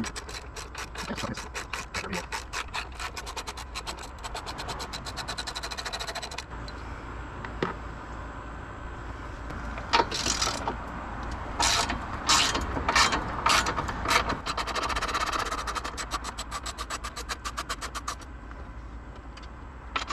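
Hand socket ratchet clicking in fast, even runs as bolts are turned. Several louder, harsher clattering bursts come about halfway through.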